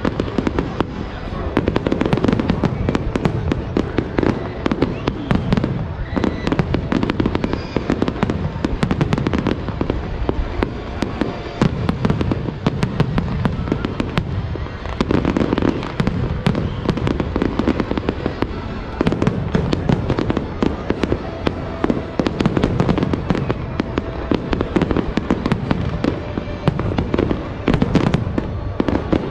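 Large aerial fireworks display: a dense, continuous run of bangs and crackles over deep, rolling booms.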